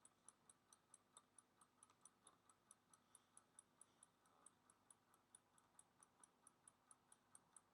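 Near silence with faint, even ticking, about five ticks a second, from a wind-up Pomodoro kitchen timer counting down.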